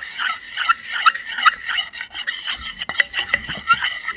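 Plastic spoon stirring baking soda into eye solution in a small metal bowl, scraping against the metal in a quick run of short, repeated strokes.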